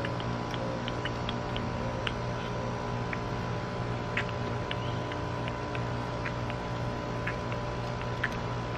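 Steady outdoor background noise: a low hum with a thin higher tone running through it, dotted with irregular short high ticks. This is the background noise that denoising strips from the rest of the recording.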